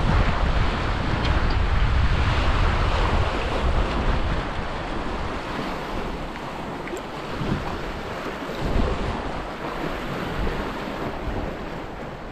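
Sea surf breaking and washing over granite rocks, with wind buffeting the microphone. The rumble is heaviest in the first few seconds, then eases.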